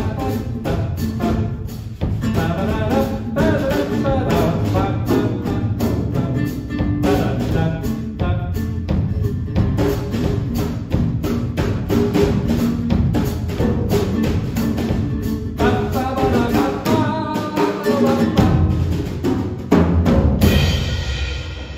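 Live acoustic guitar and drum kit playing a jazzy, upbeat song, with the drummer keeping a steady beat on cymbals and bass drum under the guitar lines. Near the end the music breaks off and applause begins.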